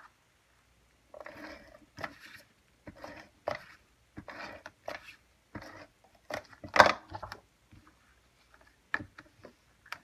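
Cardstock being handled and slid on a craft work mat: irregular paper scrapes and rustles with light taps, the loudest scrape about seven seconds in.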